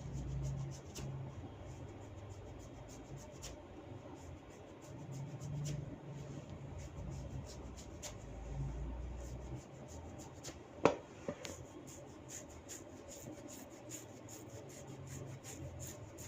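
Hands rubbing and massaging through long hair and over the scalp, with many faint crackling ticks and one sharp crack about eleven seconds in.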